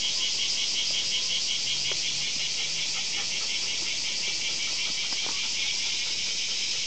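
A steady, shrill chorus of insects buzzing, pulsing at about five times a second.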